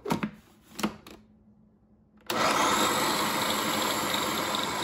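A few knocks, then just over two seconds in an electric food processor's motor starts abruptly and runs steadily, blending thick brownie batter of black beans and oats.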